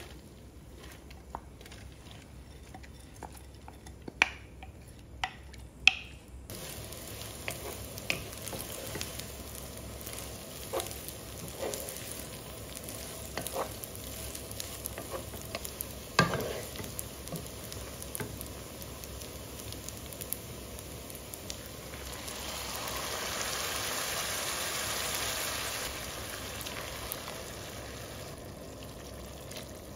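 A few sharp knocks, then food starts sizzling in a hot frying pan, with a utensil clinking and scraping now and then as it is stirred. The sizzle grows louder for a few seconds past the middle.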